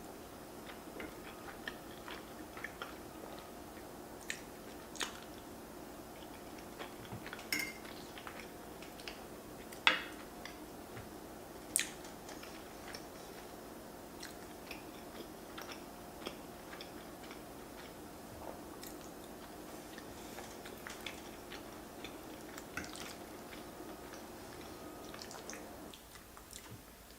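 Close-up eating sounds: chewing and biting of creamy fettuccine Alfredo with king crab, with many small wet clicks and a few sharp clacks, the loudest about ten seconds in, over a steady low hum that stops near the end.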